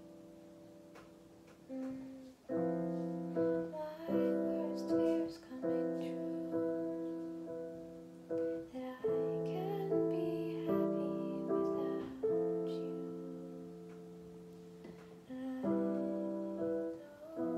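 Piano chords played slowly, each struck and left to ring and fade. A held chord dies away quietly at first, then from about two seconds in new chords come roughly once a second.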